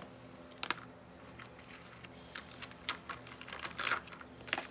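Small hard clicks and taps at irregular intervals, a cluster of them near the end, as alphabet stamps and a small stamp block are rummaged through and knocked together.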